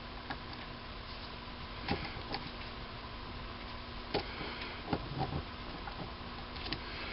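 A handful of light, scattered clicks and taps as a micrometer is fitted and closed onto an aluminum workpiece in a small lathe's chuck, over a steady faint hum.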